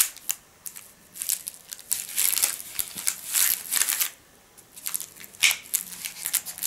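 A metal knife prying at sticky pieces of Turkish delight in a thin plastic tray wrapped in cellophane: irregular crinkling of the plastic and wrap, with small scrapes and clicks. The sounds come in short clusters with quiet gaps between them.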